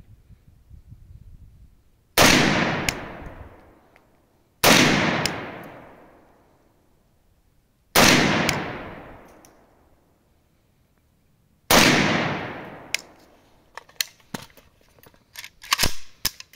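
Four single shots from a VPO-156 Vepr 7.62 mm semi-automatic carbine, a few seconds apart, each followed by a long echo that dies away over about two seconds. Near the end come a run of light clicks and knocks.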